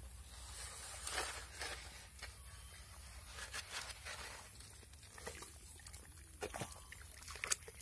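Live eels writhing and sliding in a mud-smeared metal bowl as muddy hands handle it: irregular soft wet sloshing and scraping, with a sharp tap near the end.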